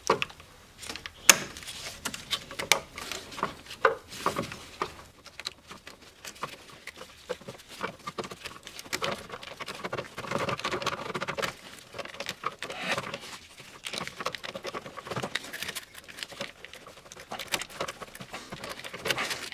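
Plastic wiring-harness connectors being unlatched and pulled off the powertrain control module: irregular sharp clicks and snaps with some rustling of wires and plastic.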